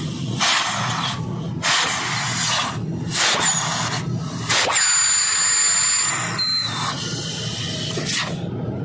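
Compressed nitrogen blown in short hissing blasts through the Toyota Hiace's A/C lines and evaporator to purge the flushing solvent. A series of bursts about a second apart is followed by a longer blast of about two seconds with a high whistle, and one last short burst near the end.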